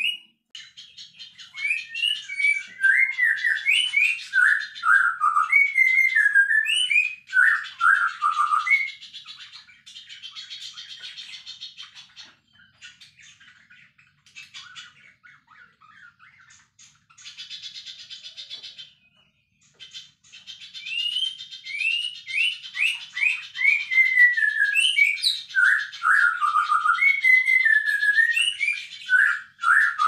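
A songbird singing: quick runs of chirps and whistled notes, many sliding down in pitch, over a fast rattling trill, with two short lulls midway.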